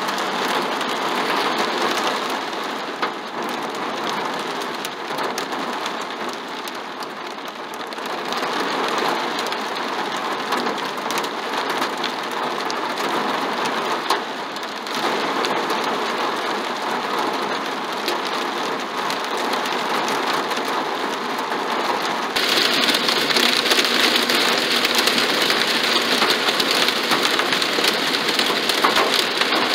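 Heavy rain mixed with hail pelting a car's roof and windshield, heard from inside the cabin as a dense patter of hits. About 22 seconds in it gets louder and harsher as the downpour grows heavier.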